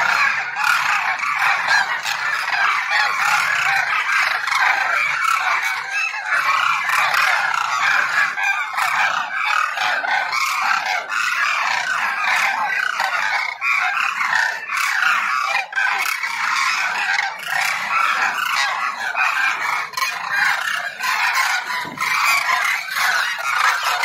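A large flock of demoiselle cranes calling all at once: a dense chorus of many overlapping calls with no break.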